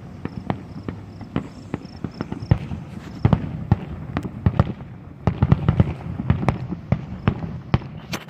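Distant fireworks display going off: an irregular string of sharp bangs and crackles, several a second, over a low rumble.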